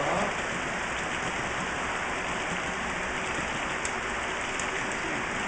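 Steady rushing noise of O scale model trains rolling along the layout's rails, with a few faint high ticks.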